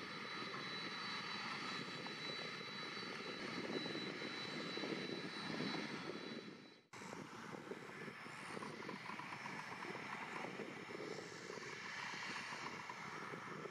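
Boeing 767-300 jet airliner running steadily on the apron: a continuous jet rush with a thin high whine. The sound cuts out abruptly about seven seconds in, then resumes as the same steady rush, a little quieter.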